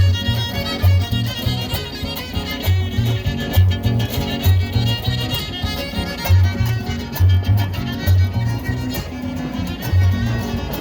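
Huasteco trio playing an instrumental passage: a violin leads over strummed guitars, with a repeating bass pattern underneath.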